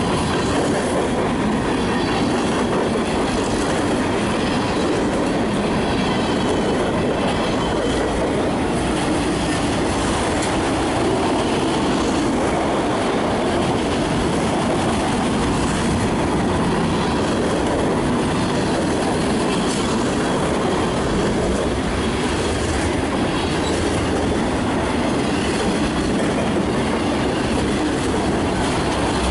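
Freight train cars rolling past at close range: the steel wheels on the rails make a steady, loud rumble as covered hoppers and then autorack cars go by.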